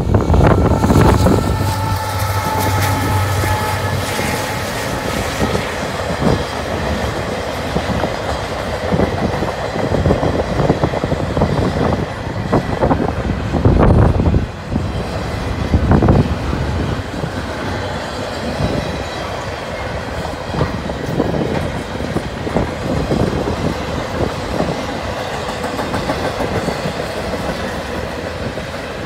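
Double-stack intermodal freight train passing at speed: steel wheels rumbling and clacking over the rail joints as the container well cars go by. A low steady hum runs through the first few seconds, and a few louder clunks come around the middle.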